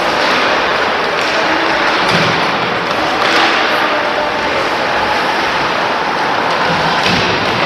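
Steady noisy hubbub of a game in a large indoor venue, with dull thuds about two seconds in and again near the end.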